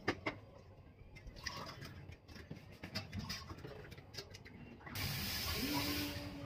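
Soft clinks and knocks of steel kitchen utensils and dishes being handled at a sink. About five seconds in, a steady hiss starts, joined by a low steady hum.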